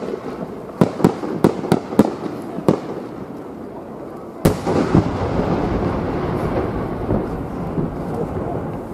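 A 10-inch (10-gō) aerial firework shell with rising small-flower attachments: about seven sharp pops in the first three seconds as the small flowers burst along its climb. About four and a half seconds in, the main shell bursts with one deep boom that rumbles and echoes on, slowly fading.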